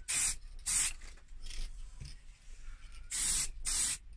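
Aerosol spray-paint can hissing in short bursts as the paint is dabbed into recesses. There are two quick bursts at the start, a fainter hiss in the middle, then three bursts in quick succession near the end.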